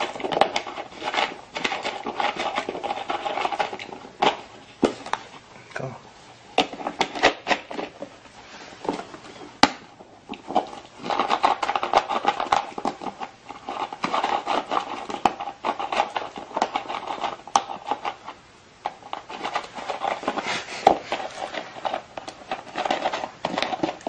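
Plastic bottle crinkling and clicking as a pig works at it with its snout and mouth, twisting the cap off, with many sharp irregular clicks over a steady crackle.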